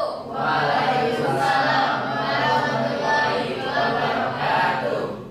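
Many students' voices chanting together in unison, a group response in chorus.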